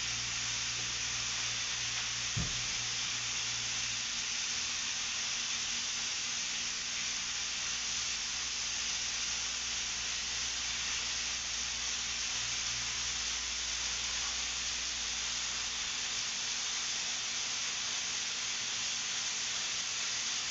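Steak frying in a pan on a gas stove: a steady sizzle, with one sharp click about two and a half seconds in and a low hum that stops about two-thirds of the way through.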